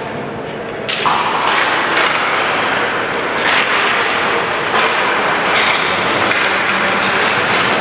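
Ice hockey play at a faceoff: about a second in, skate blades start scraping the ice, with sharp knocks of sticks and puck clacking on the ice.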